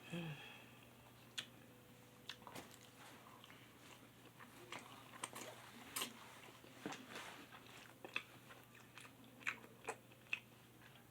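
Faint chewing of spicy instant noodles, with scattered short wet clicks and smacks, after a brief low vocal sound at the very start.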